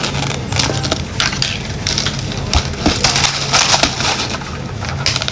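Plastic crackling and rapid small clicks as a clear plastic cup packed with ice is handled and its lid pried off, with the ice cubes shifting and clinking inside. A faint steady low hum lies underneath.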